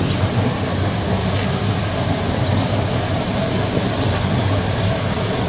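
Shay geared steam locomotive working up the line at close range: a steady, dense rumble of exhaust and running gear with no clear break or beat.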